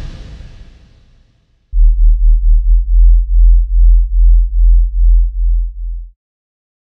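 Trailer-style soundtrack: the tail of a heavy hit dies away, then a deep synthesized bass tone pulses evenly, about three pulses a second, for roughly four seconds and cuts off suddenly.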